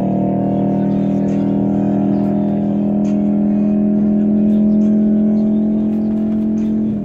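Race car engine running at a steady high note, its pitch and level falling sharply near the end.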